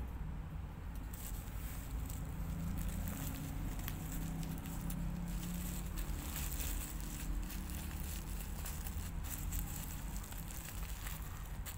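Bubble wrap crinkling and crackling under pressing, rubbing fingers: a dense run of small clicks that grows thicker after about six seconds.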